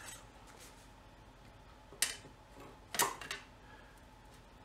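Two light, sharp clicks about a second apart, with a smaller one just after the second: a thin metal spacer plate tapping against the engine block as it is seated onto the dowel pins.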